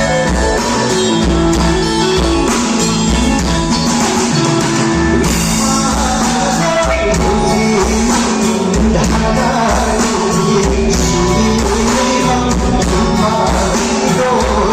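A rock band playing live, with a voice singing over a steady beat of drums and bass.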